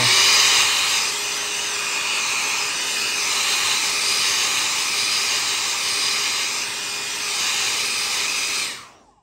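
Hairdryer blowing steadily, a rush of air with a faint steady hum under it, drying freshly applied leather colourant; it stops near the end.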